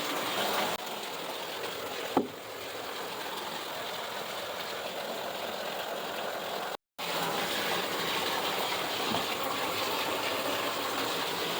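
Steady hiss of water in a bathtub, broken by a brief squeak about two seconds in; the sound cuts out for a moment about seven seconds in.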